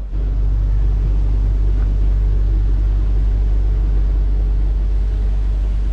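Paddle steamer under way: a steady low rumble of the boat's engine with an even hum.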